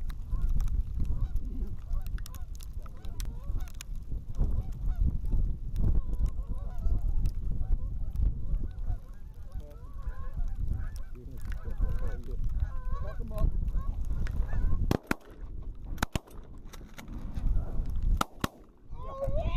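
Geese honking as a flock comes in over the decoys, against a heavy rumble of wind on the microphone. About three-quarters of the way through, several shotgun shots crack out over a few seconds while the honking carries on.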